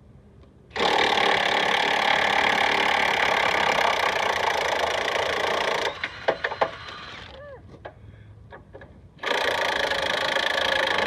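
Cordless impact wrench hammering as it loosens bolts, in a long burst of about five seconds, then a few metallic clicks and knocks, then a second burst of about two seconds near the end.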